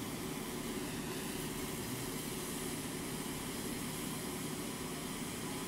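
Parallel 26-gauge Kanthal micro coils on a rebuildable atomizer being fired, sizzling with a steady hiss as the e-liquid in the saturated cotton boils off, over a steady low hum.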